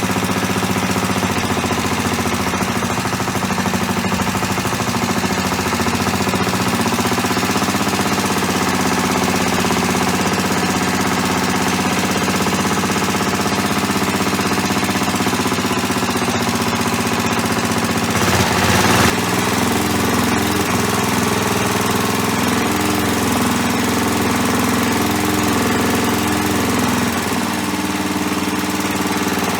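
Restored Clinton C700 single-cylinder small engine running steadily, with a brief louder rush about 18 seconds in and its speed wavering a little later on. The owner says the engine has carburetor issues, its jets badly corroded.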